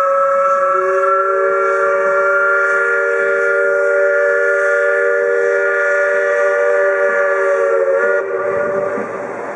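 Steam whistle of the paddle steamer Kurort Rathen blowing one long blast, several notes sounding together as a chord, with lower notes joining about a second in. It cuts off about eight seconds in, leaving the rush of water and wind.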